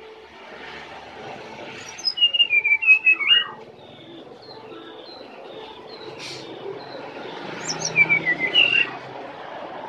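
Brown-chested jungle flycatcher singing: two short phrases of quick, high chirping notes, one about two seconds in and another about eight seconds in, over steady background hiss.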